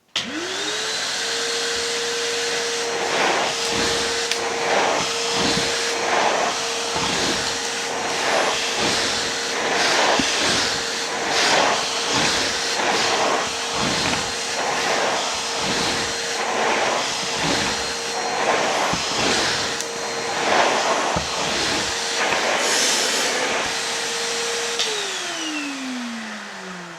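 Numatic Henry HVR160-11 vacuum cleaner switched on: its motor spins up to a steady whine within a second and runs with a rush of air that swells and dips about once a second. It is switched off near the end and winds down with a falling pitch.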